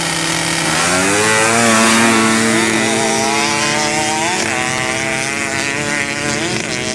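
Two ATV engines at full throttle as the quads launch off the line in a drag race. The engine pitch climbs, then dips and climbs again twice as they shift up through the gears.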